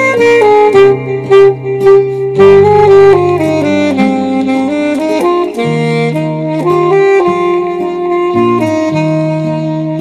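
Saxophone playing a melody over a backing track with bass notes and a light beat.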